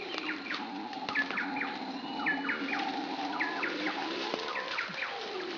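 Howler monkeys roaring in a continuous, droning chorus that does not break. Birds call over it in short, sharp, repeated chirps.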